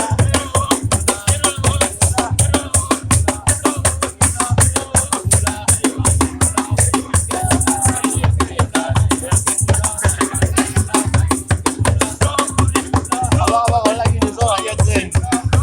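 Praise music with a fast, steady drum beat, a shaker and voices singing.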